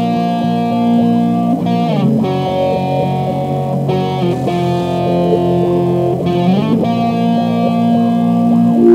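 Background music: a distorted electric guitar playing held chords, changing chord every two seconds or so with slides between them.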